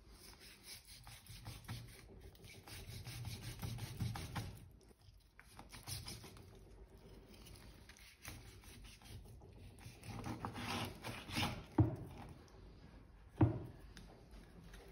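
Long carving knife sawing back and forth through a smoked pork rack's crust and meat, rasping against the wooden cutting board. Two sharp knocks near the end.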